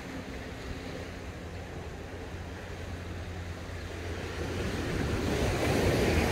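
Ocean surf washing onto the beach, with wind rumbling on the microphone; the wash swells louder over the last couple of seconds.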